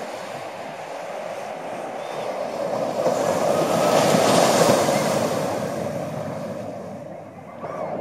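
Sea waves breaking and washing up the sand: one wave swells to its loudest about halfway through and then drains away, and the next starts to break near the end.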